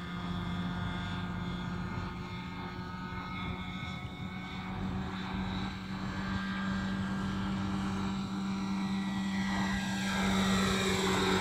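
Radio-controlled scale model Bell 212 helicopter in flight: a steady motor and rotor whine over a low hum, getting louder near the end as its pitch shifts.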